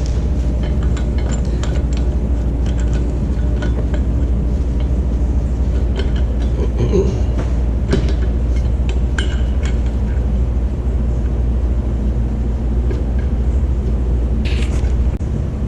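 Steady low machinery hum, with scattered light metallic clinks and knocks, one sharper clink near the end.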